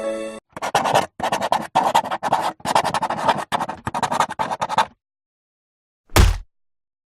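Scratchy, scraping noise in quick choppy bursts for about four and a half seconds, followed after a pause by a single dull thump.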